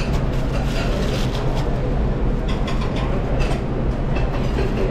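Steady, loud low rumble of a busy restaurant kitchen line, with light clicks and plastic crinkling from bagged portions being handled.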